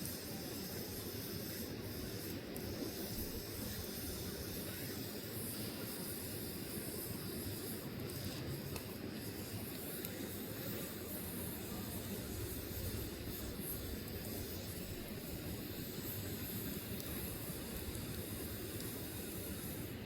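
Burning log fire, a steady hiss with a few faint crackles and pops.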